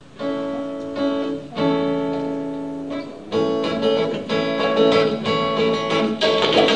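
Instrumental intro of a Bangla folk song: held chords for the first few seconds, then acoustic guitar strumming rhythmic chords from about three seconds in, with percussion joining near the end.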